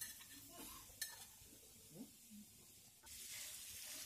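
A steel ladle clicking faintly against the metal of a pressure cooker as boiled pork pieces are scooped out. About three seconds in, a steady sizzle starts as the pork is stirred in hot oil in the pan.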